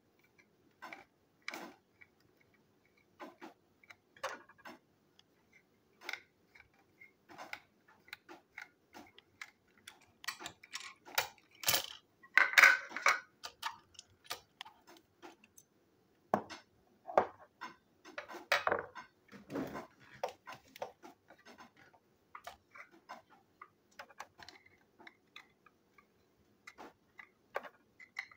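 Irregular clicks, snaps and rattles of a small plastic toy train engine being handled and taken apart by hand on a hard table, busiest and loudest around the middle.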